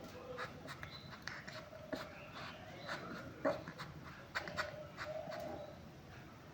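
A pet making soft panting and whimpering sounds, with scattered small clicks, between louder yowls.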